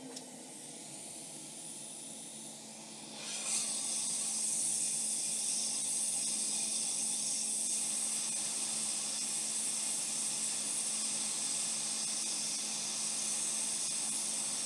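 Hot air rework station blowing a steady hiss, starting about three seconds in, as it reflows the solder under a replacement MOSFET on a laptop motherboard.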